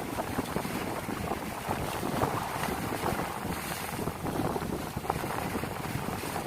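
Wind blowing across the microphone over a rough sea, a steady rush of wind and water noise.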